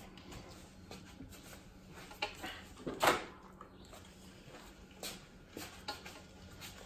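Faint steady electrical hum, with a handful of light knocks and scrapes; the loudest, about three seconds in, is a short scrape.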